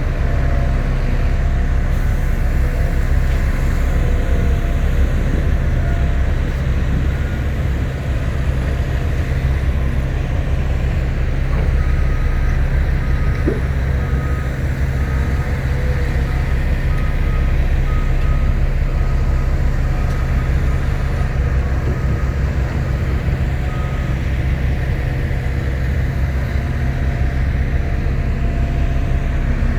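Heavy construction vehicle's diesel engine running with a steady low rumble. Its reversing alarm sounds a regular series of beeps from about twelve seconds in for roughly twelve seconds.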